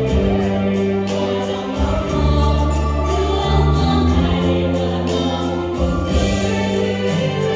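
Mixed choir of men and women singing together into microphones, amplified, with a low bass line held under the voices.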